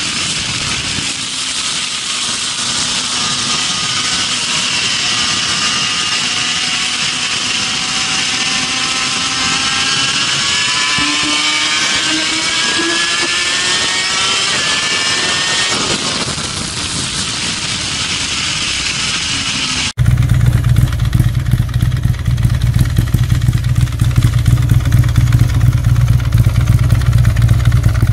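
Onboard sound of a racing motorcycle at speed on a track: heavy wind rush over the engine, whose pitch climbs as it accelerates. About twenty seconds in it switches abruptly to the Confederate G2 P51 Combat Fighter's big air-cooled V-twin running steadily, loud and low.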